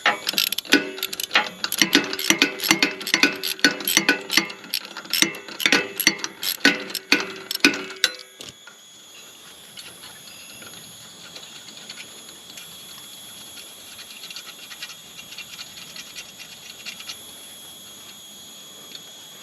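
Hand ratchet wrench clicking rapidly as a chipper blade's bolt is backed off, for about eight seconds before it stops.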